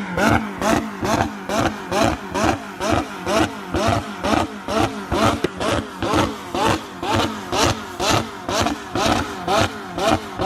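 Turbocharged car engine revved in quick, repeated blips, about three a second, each with a rising and falling whistle and a burst of hiss.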